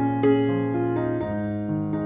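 Background music on an electric piano, a new note struck about every half second.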